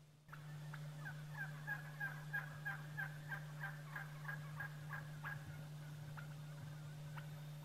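Wild turkey calling: a quick, even run of about a dozen short calls, about three a second, that thins out to scattered calls after about five seconds. A steady low hum runs underneath.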